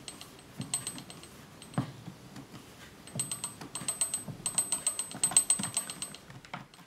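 Screw clamps being tightened on a shoe: runs of quick, light metallic clicks and rattles from the clamps' screws and sliding arms, with a single duller knock about two seconds in.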